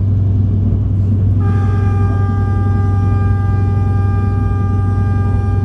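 Diesel light rail car running with a steady low rumble, heard from inside the passenger car. About a second and a half in, the train's horn sounds and holds one long steady note to the end.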